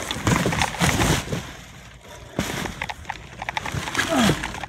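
Black plastic garbage bags rustling and crinkling as they are handled and pulled about, with irregular crackles and knocks.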